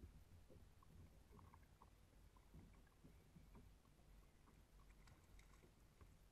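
Near silence: faint lapping of water against a kayak hull, with scattered soft ticks and a few clicks.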